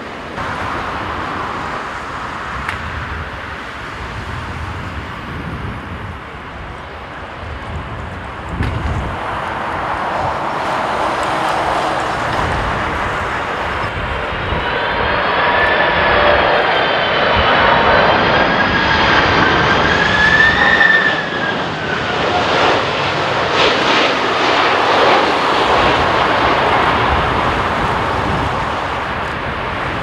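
Airliner jet engines: first a Boeing 787-9 climbing away on a go-around, then a four-engined Boeing 747-400 on final approach. The 747's noise builds to its loudest about two-thirds through, with a high fan whine that wavers in pitch, and eases slightly as the jet nears the runway.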